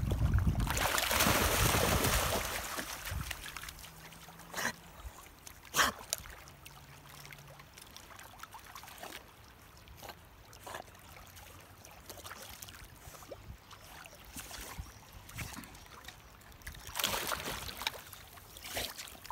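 A dog splashing as it wades and swims in shallow river water, loudest in the first few seconds and again near the end, with a couple of sharp clicks and faint lapping water between.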